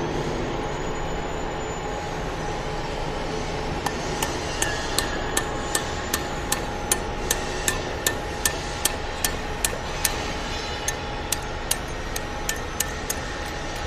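Hammer striking a steel pin punch in quick, even taps, about two to three a second, beginning about four seconds in and thinning out near the end. The taps are driving the stop pin and rod pin out of a hydraulic breaker's body to free the chisel. A steady background hum runs underneath.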